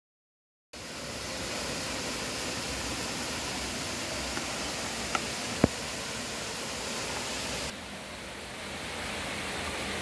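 Valley stream water rushing steadily, starting suddenly about a second in, with two short sharp clicks a half second apart around the middle and a sudden dip in level, mostly in the hiss, about three-quarters of the way through.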